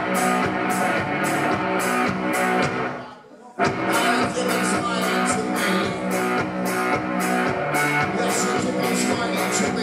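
A live rock duo plays electric guitar and drum kit with a steady beat. About three seconds in, the band stops together and comes back in half a second later.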